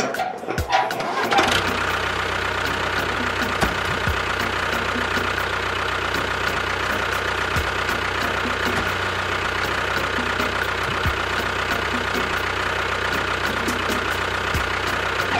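Small electric motor, as used in a DIY mini water pump or toy tractor model, switched on about a second and a half in and running at a steady speed with a high steady whine, a few faint knocks under it.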